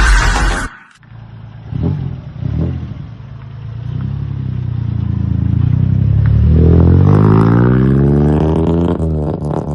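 Maruti 800's three-cylinder petrol engine revving through an aftermarket Black Hawk exhaust silencer: two quick throttle blips, then a longer rev that climbs, holds high for a few seconds and drops back near the end.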